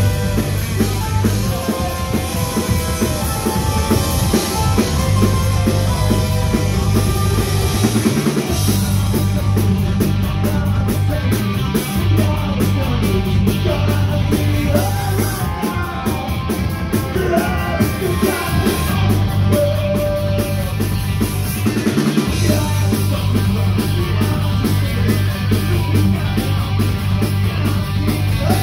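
Live punk rock band playing loud: electric guitar, bass guitar and drum kit, with a male singer's vocals over the top.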